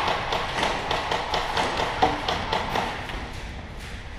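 A rapid, irregular series of sharp taps and knocks that fades toward the end.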